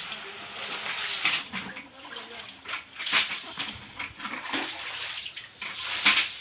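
Floodwater being scooped and pushed across a flooded floor: sloshing water with a sharp splash every second or two.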